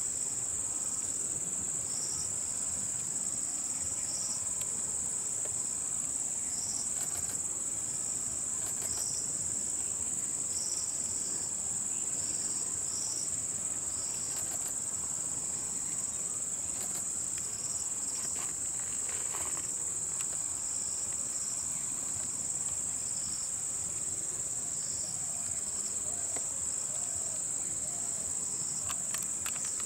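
Insects calling: a steady high-pitched drone, with another insect chirping just below it in short, regular pulses about once a second.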